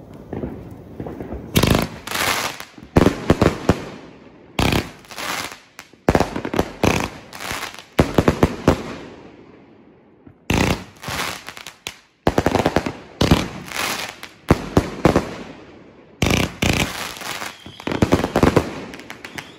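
Fireworks going off in several volleys of rapid, sharp bangs, with short breaks between the volleys.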